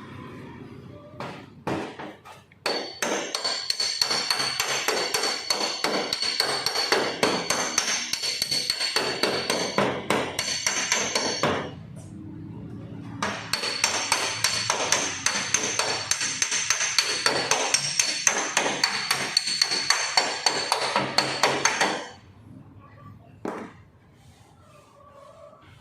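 Hand work on a car body panel during body-filler repair: two long runs of rapid, dense knocking and scraping strikes with a short pause between them, then it drops away near the end.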